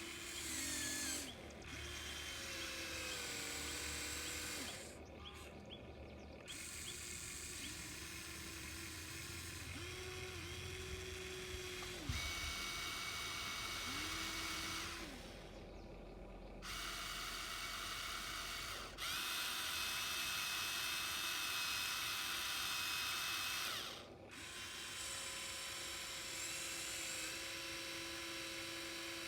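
Small electric motors and gearing of a radio-controlled model excavator whining in stretches of a few seconds that start and stop suddenly, the pitch rising and falling as the machine moves, with a sharp click about twelve seconds in.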